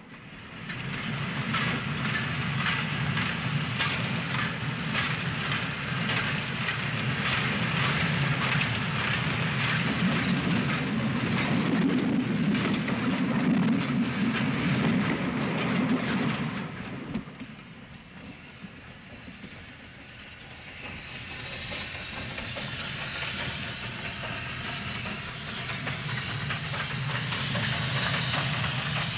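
Freight wagons rolling fast over a steel truss bridge, wheels clattering rapidly on the rails over a heavy rumble. About seventeen seconds in the clatter drops away, and the hiss and running of an approaching steam locomotive grows steadily louder.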